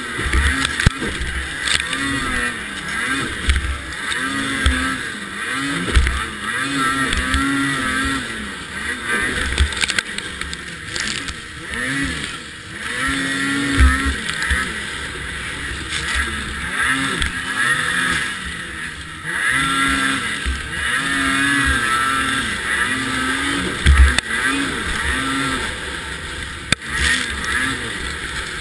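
Racing snowmobile's two-stroke engine revving up and down over and over as the sled is raced along a snowcross course, with several heavy thumps as the chassis jolts over bumps, and wind on the microphone.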